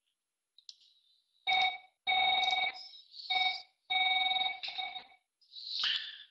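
An electronic ringing tone sounds in about five short bursts of uneven length, each a steady buzzy tone, followed by a short hiss near the end.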